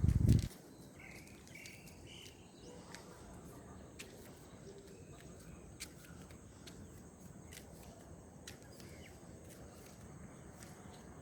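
Faint outdoor ambience with a few short bird chirps in the first few seconds and scattered small clicks. A brief low thump at the very start is the loudest sound.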